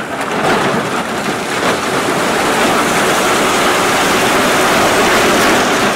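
Rushing water of a river, a loud steady hiss.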